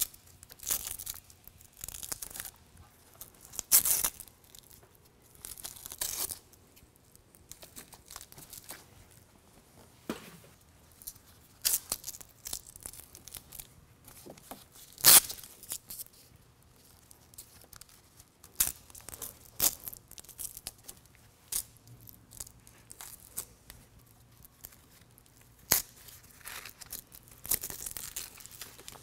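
Velcro (hook-and-loop) straps of a mesh sun shade being ripped open and pressed closed. They make short, irregular ripping rasps a few seconds apart, with light handling noise between.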